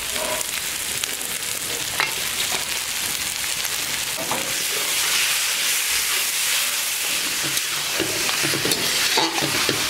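Spice masala sizzling in hot oil as crushed fried fish heads are stirred into it, with a spatula scraping and clicking against the pan a few times.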